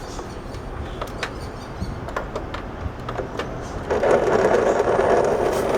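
Lasko 2651 tower fan's oscillation motor straining to turn the fan: a few light clicks, then about four seconds in a loud, harsh rattling noise starts and keeps going as the drive sticks and barely turns. The owner suspects the motor is losing strength and can't carry the fan's weight, possibly a gear in the motor.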